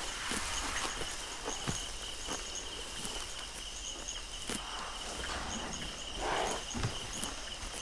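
Hippopotamuses grazing, their lips tearing and cropping short grass in irregular snaps and rips, with a louder rush about six seconds in. Night insects trill steadily behind, with faint chirping above them.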